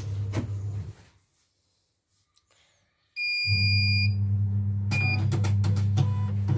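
Portable CNY embroidery machine: a steady low hum stops about a second in. After about two seconds of silence the machine powers up, with a long electronic beep from its control panel and the hum back. Shorter beeps follow about five and six seconds in.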